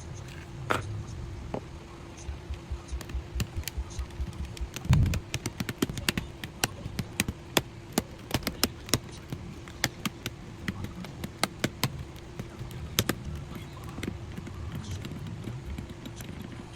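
Typing on an Akko PC75B Plus mechanical keyboard: irregular key clacks, several a second, with a louder thump about five seconds in. A faint steady hum runs underneath.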